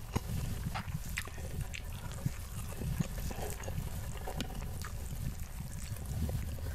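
Close-miked wet chewing and mouth clicks from someone eating rice and omelette, with irregular small smacks and a soft squish of rice being pressed together by hand.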